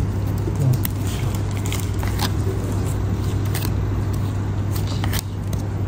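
Steady low hum and rumble of background noise, with a few light clicks scattered through it, typical of trading cards being handled.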